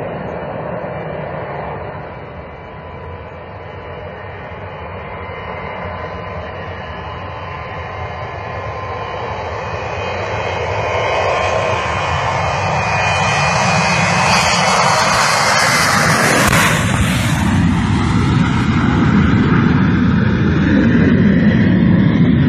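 Boeing 727 cargo jet's engines at high power as it passes low overhead: a jet rush that grows steadily louder and brighter, peaks about three-quarters of the way through, then falls in pitch as the aircraft goes by.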